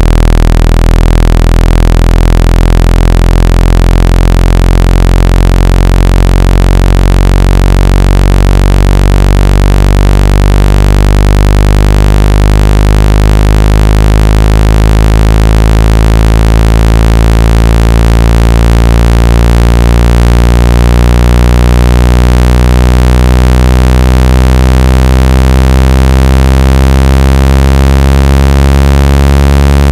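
Speaker water-ejection tone: a very loud, low, buzzing electronic tone with many overtones, played continuously to vibrate water out of a phone speaker or earphone. Its pitch slowly shifts.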